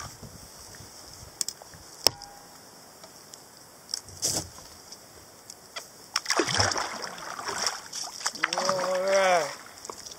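Double-bladed kayak paddle strokes: the blades dipping and splashing in the creek water, with a few sharp clicks in the first couple of seconds. Near the end a man makes a short drawn-out wordless vocal sound.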